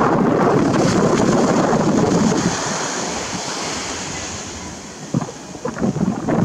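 Small waves breaking and washing up the sand: a surge of surf at the start that fades over several seconds, with wind buffeting the microphone in a few gusts near the end.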